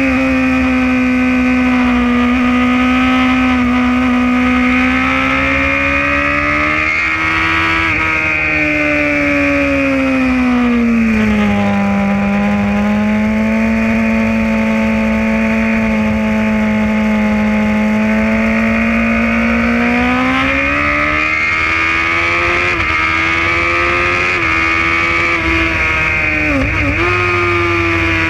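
Sport motorcycle engine at high revs, heard from on board at track speed, with wind rush. The engine note holds high, drops off about ten seconds in as the bike slows, holds lower for a while, climbs again around twenty seconds in, and dips sharply once near the end before picking up again.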